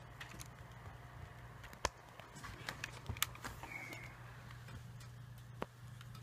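A few faint, scattered clicks and taps over a low steady hum, the sharpest about two seconds in and again near the end.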